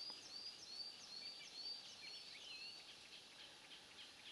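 Faint birdsong: a bird repeats a short, high, arched whistle about three times a second, stopping near the end of the third second, with scattered calls of other birds behind it.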